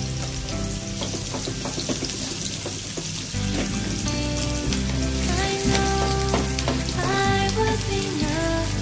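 Sliced onions sizzling and crackling in hot oil in a nonstick frying pan, stirred with a wooden spatula. Background music with sustained tones and a low bass plays over it.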